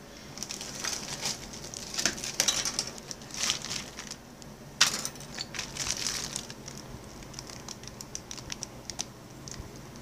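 Plastic model kit parts trees, chrome-plated and clear, being handled and shifted: irregular clicks, taps and crinkling rustle of stiff plastic, with the sharpest click about halfway.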